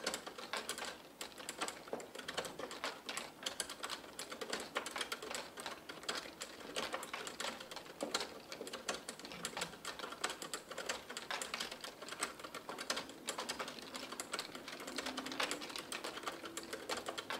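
Dense, irregular clicking and ticking from a slowly turning bicycle's chain, chainrings and crank. A faint low hum comes in near the end.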